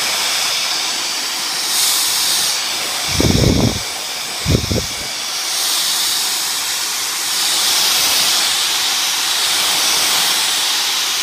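Dyson DC56 cordless handheld vacuum running with a loud, steady hiss of rushing air as it is drawn over a curtain to pick up cat hair, its tone brightening and dulling as the nozzle moves. Two brief low thumps about three and four and a half seconds in.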